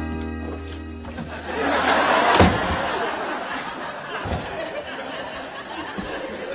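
A short music sting fades out with a sharp knock about two and a half seconds in, while a studio audience laughs.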